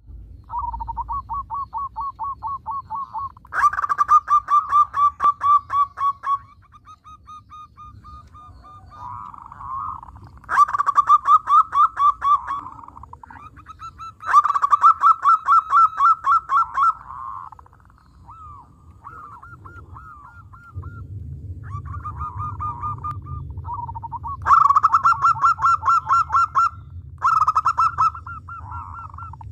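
Zebra dove (perkutut) in full song: phrase after phrase of rapid rolling coos, each phrase lasting a few seconds, with short pauses between.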